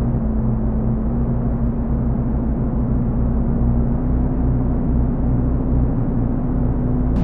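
Analog Moog synthesizer playing a dark, low sustained drone with a steady held tone, heavily filtered so it sounds muffled; right at the end it brightens as higher tones come in.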